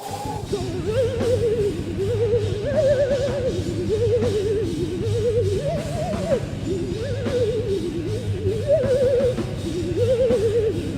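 Heavy metal band playing live: a wavering lead melody with wide vibrato rides over rapid, steady drumming and a low sustained bass and rhythm bed.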